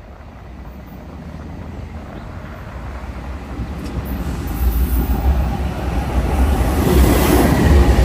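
Freight train led by BNSF GE C44-9W and ES44C4 diesel locomotives approaching and passing close by. The low diesel engine sound grows steadily louder, at its loudest over the last few seconds as the locomotives go by.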